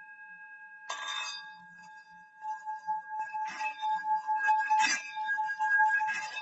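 Metal Bali singing bowl: it is struck about a second in, then its ringing swells and wavers, with several sharp clinking hits against the metal.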